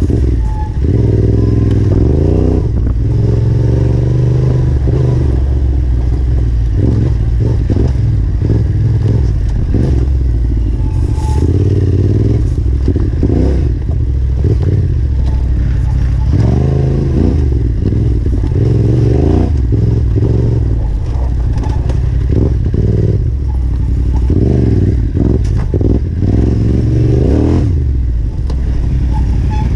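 Yamaha Ténéré 700's parallel-twin engine revving up and falling off again and again while riding a rough dirt trail, with knocks and rattles from the bike over the ground.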